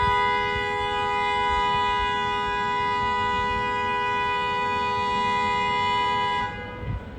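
Car horn held down in one long, steady two-tone blast that stops about six and a half seconds in. Drivers are honking because a double-parked vehicle has blocked the one-way street.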